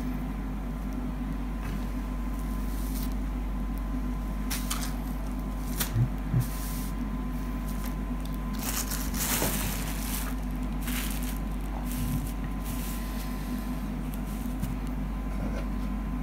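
Soft rustles and a few light taps from hands smoothing out and turning over a cotton T-shirt on a wooden table, over a steady low hum.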